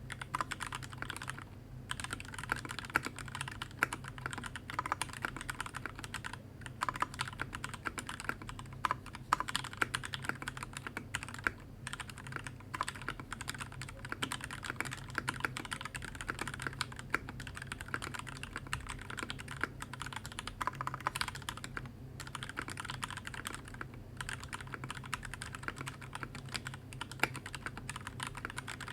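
Typing on a BBOX60 60% mechanical keyboard fitted with Alpaca linear switches and Keyreative keycaps. It is a fast, steady stream of keystrokes, broken by brief pauses every few seconds.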